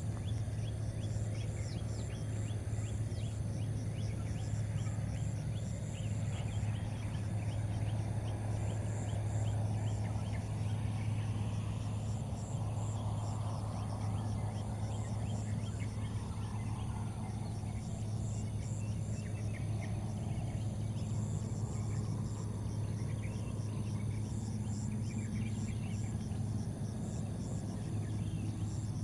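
Steady low hum with insects chirping in short, quickly repeated pulses high above it; a broad swell of noise rises and fades about halfway through.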